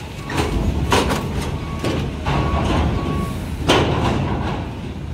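Loaded cargo trucks driving over the steel-grating loading ramp of a ferry: a low engine and tyre rumble, with heavy metallic clanks as the wheels cross the ramp plates. There are several clanks, and the loudest comes about three-quarters of the way in.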